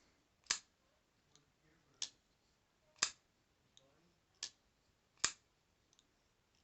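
Folding knife blades being opened and closed by hand, each action locking or seating with a sharp click. Five loud clicks come at roughly one-second intervals, with fainter clicks in between.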